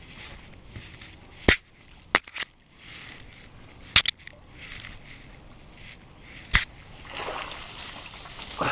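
A rope being hauled in hand over hand to pull a net from the river, with several sharp snaps or knocks at irregular intervals. A rustling swish comes near the end as the net is dragged up through the bank grass.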